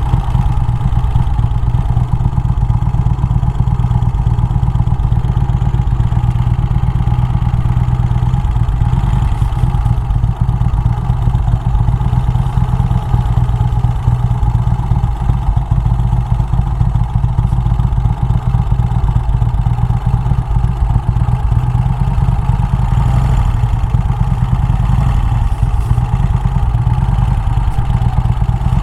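Motorcycle engine running steadily, with a low, even rumble that neither rises nor falls.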